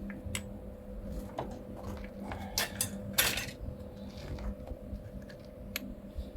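Light metallic clinks and knocks of a steel patch panel and tools being handled, with two short hissy bursts about two and a half and three seconds in, over a steady electrical hum.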